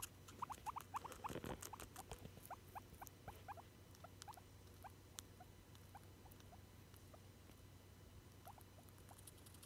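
Guinea pig talking in soft, short squeaks, a quick run of them over the first few seconds, then more spaced out, with faint clicks between.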